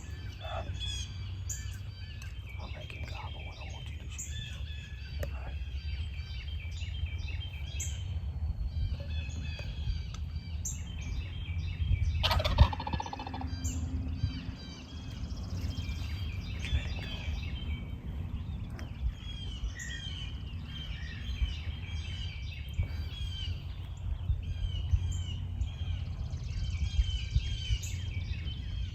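A wild turkey gobbles once, a loud rattling call about twelve seconds in, over songbirds chirping throughout.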